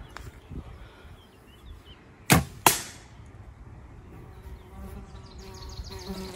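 A bow is shot with a sharp thump of the string, and about a third of a second later the arrow smacks into the target.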